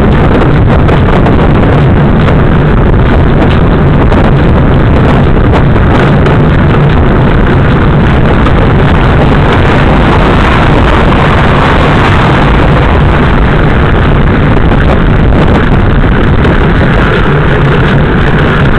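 Steady, loud rush of wind buffeting the built-in microphone of a rear-facing bike-light camera while cycling, mixed with road and tyre noise.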